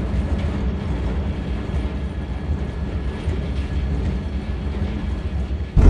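Steady low mechanical rumble as a crane lowers a bundle of logs onto a lumber truck, then a sudden heavy thud near the end as the logs land on the truck.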